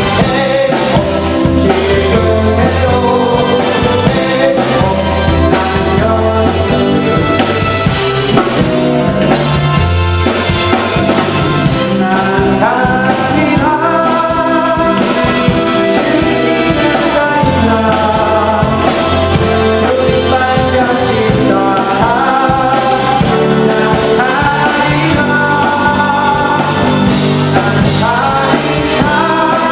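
Live praise band playing an upbeat rock-style worship song, with electric guitar, keyboard and drums; singing joins in about midway.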